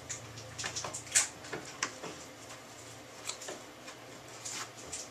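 Scattered light clicks and scrapes of a small replacement faucet part, wrapped in Teflon tape, being fitted into a tub faucet's valve body, with the sharpest clicks about a second in and just before two seconds in.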